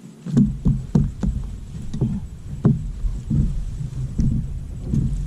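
A string of irregular knocks and thumps on a boat, about two or three a second, over a low rumble.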